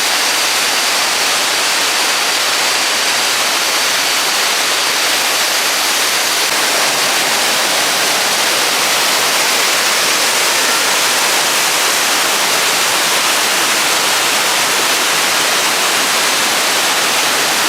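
Waterfall in high rainy-season flow: a steady, loud rush of falling water.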